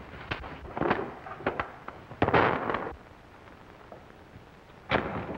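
Fistfight sound on an old film soundtrack: a run of sharp knocks and thuds from punches and scuffling, with a louder crash about two seconds in and another thud near the end.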